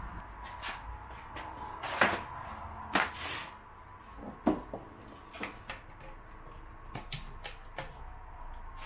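Plasma cutter cables and torch lead being handled and plugged into the machine's front sockets: a run of clicks and knocks, the loudest about two, three and four and a half seconds in.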